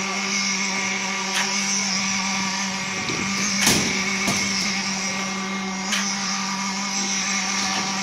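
Concrete pump with mixer running steadily while it pushes concrete through the delivery hose: a constant machine drone with a steady hum. A sharp knock comes about every two and a half seconds.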